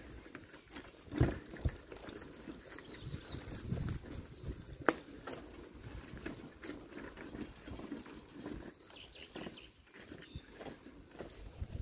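Footsteps of a person walking on a dry dirt path strewn with leaves and grit: irregular soft steps, with one sharp click about five seconds in.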